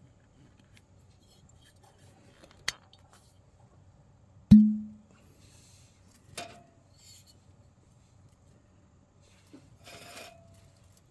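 Objects being handled: a sharp click, then a heavy knock with a short low ring, then a lighter clink that rings briefly, and near the end a short scrape with a ringing clink.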